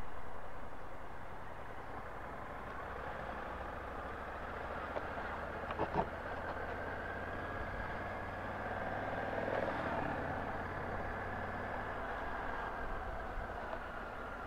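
A vehicle engine running steadily at low revs over street noise, with one short click about six seconds in.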